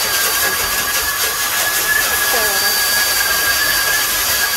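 Dog grooming blow dryer running steadily: a loud rushing hiss with a steady high-pitched motor whine.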